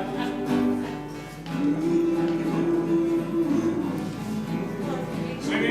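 Live country music: acoustic guitar strumming a slow tune between sung lines, with one long held note in the middle.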